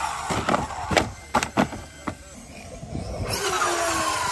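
Two-stroke gas engine of a Losi 5ive-T large-scale RC truck revving up and falling off, with several sharp knocks in the first two seconds. It drops back for about a second, then revs again near the end.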